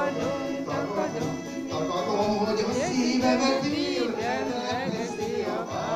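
Instrumental music from an electronic keyboard: a wavering melody over a steady accompaniment, the introduction to a Hungarian nóta (folk-style popular song).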